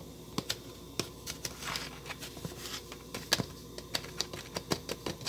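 Irregular light clicks and taps, about three a second, from a metal spoon being handled and knocked against kitchen things while measuring out salt.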